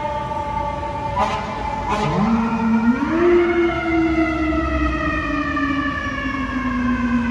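Fire truck sirens. One siren's high tone slides slowly down, and about two seconds in a deeper siren starts low, rises to a wail over about a second, then slowly sinks in pitch. There are two short clicks just before it starts.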